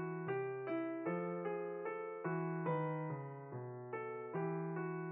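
Background music: a soft keyboard tune of evenly paced notes, each note fading before the next one starts.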